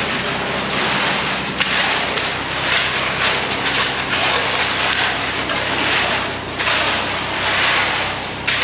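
Concrete mixer truck's diesel engine running steadily, with a rushing, scraping noise over it that swells and fades about once a second.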